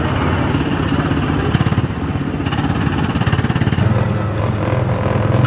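Small petrol engine of a Tomorrowland Speedway car running with a rapid, rough chugging. About four seconds in, its note grows louder and steadier as it picks up.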